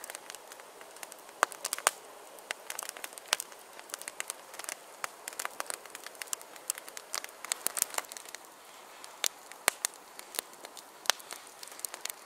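Campfire crackling, with irregular sharp pops and snaps several times a second over a soft hiss of burning.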